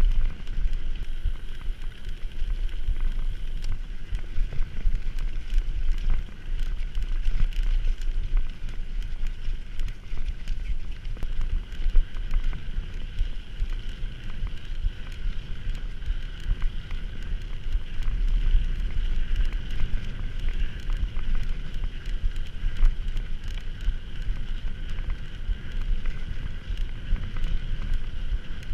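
A mountain bike in motion, with wind buffeting the camera's microphone as a steady rumble, a steady high whir, and frequent small clicks and rattles.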